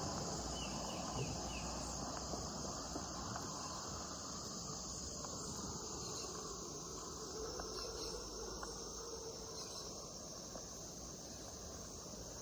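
Insects chirping as a steady high chorus over a low background rumble, with a few brief higher chirps about a second in.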